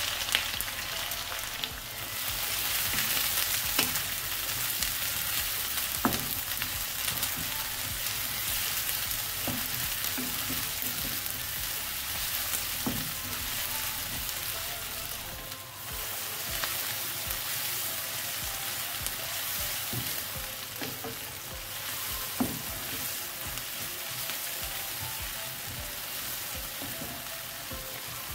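Sliced red onions sizzling and frying in hot oil in a nonstick pan, being fried toward light brown and stirred with a wooden spatula. The sizzle runs steadily, a little louder right after the onions go in, with a few sharp knocks of the spatula on the pan.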